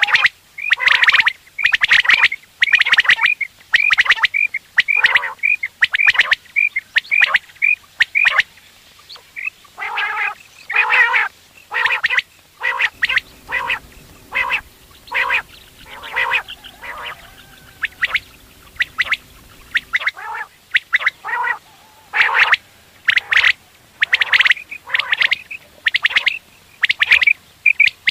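Caged common quail calling over and over in short, quick calls, about two a second, several birds overlapping, with some fast trilled notes. A faint low hum sits under the calls for several seconds in the middle.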